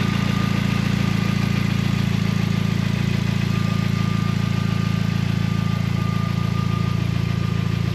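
An Audi TT Mk2's turbocharged 2.0 TFSI four-cylinder idling steadily through a freshly fitted 3-inch exhaust with a Scorpion downpipe and sports cat, left running to check for exhaust leaks. A faint steady whine sits above the low idle hum.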